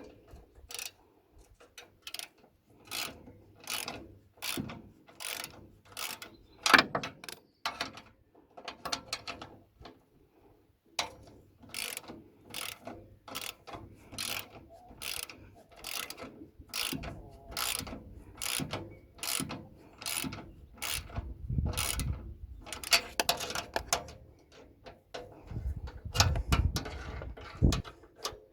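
Socket ratchet wrench being worked back and forth in quick strokes, each stroke a short run of ratchet clicks, repeating about one and a half times a second with a brief pause partway through.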